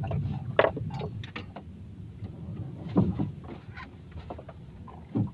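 Sea water lapping against a small boat's hull with a steady low rumble, and a few short knocks, the loudest about three seconds in and near the end.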